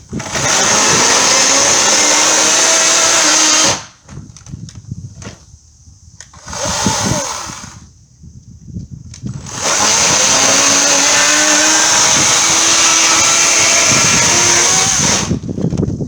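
EGO 56-volt 14-inch cordless electric chainsaw running under load as it cuts through old wooden fence boards, with a steady high whine. There are two cuts, one of about three seconds and a longer one of about six seconds, with knocks and clatter in the pause between them.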